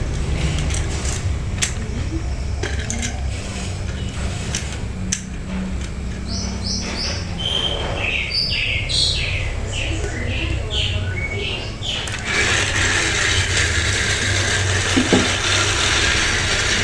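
Battery-powered toy train running: a steady motor hum with scattered clicks, a run of short high electronic beeps from about six seconds in, then a steady hiss from about twelve seconds in.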